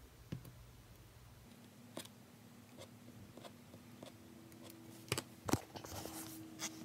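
Faint scattered taps and clicks of metal tweezers handling a small part on a cutting mat, with two sharper knocks about five seconds in and rustling handling noise near the end. A faint steady hum comes in about a second and a half in.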